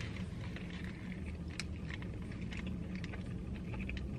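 A person chewing a mouthful of hamburger with scattered soft clicks, over a steady low hum inside a car.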